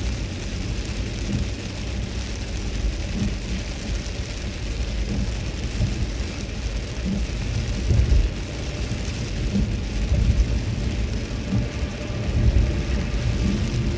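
Inside a Toyota Celsior driving on a rain-soaked road: steady hiss of rain and tyre spray over a low rumble of road noise. A few louder low thumps come about eight, ten and twelve seconds in.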